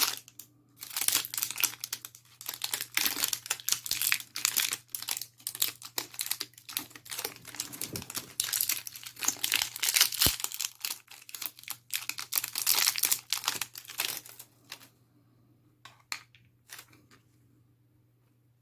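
Plastic and cardboard packaging crinkling and tearing as new batteries are unwrapped by hand, then a few separate clicks near the end as they go into the remote control.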